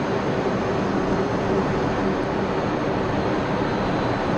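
Steady noise of an F-16 fighter jet in flight heard from inside the cockpit: engine and rushing air, with a low hum underneath.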